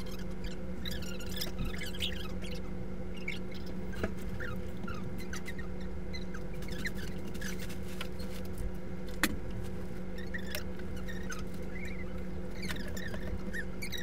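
Steady indoor hum with faint, short high squeaks scattered through it and a sharp click about nine seconds in.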